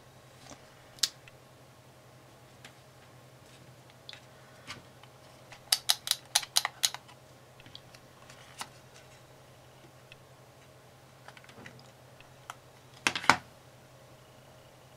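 Light clicks and taps of hands handling a paper card and small buttons on a cutting mat. There is one click about a second in, a quick run of about seven clicks midway, and a louder cluster of clicks near the end.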